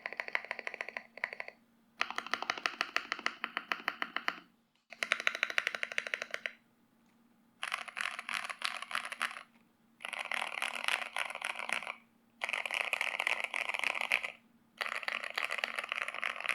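Typing on an Akko MOD005 mechanical keyboard with an FR4 plate, stock Gateron Oil King linear switches, ASA-profile keycaps, and foam, PE-sheet and tape-mod dampening. The keys are struck in fast runs of one to two seconds with short pauses between.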